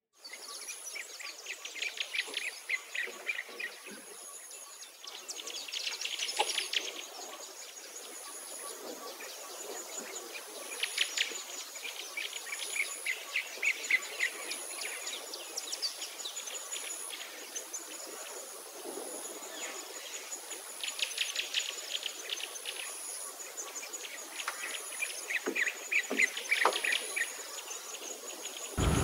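Outdoor birdsong: small birds give bursts of rapid, high chirping trills every few seconds. Under them an insect keeps up a thin, very high buzz that comes and goes in regular pulses.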